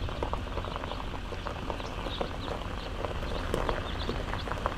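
A heavy machine's engine running low and steady, with many small irregular clicks and crackles over it.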